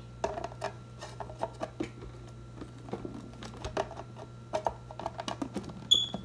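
Scattered light clicks and taps of a plastic lid being fitted and pressed down onto an Oster blender jar full of Hot Cheetos, with a short high squeak near the end. The blender motor is not running.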